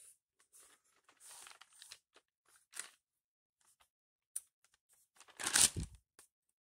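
Scattered faint clicks and crinkling rustles, with one louder, brief rustling burst about five and a half seconds in.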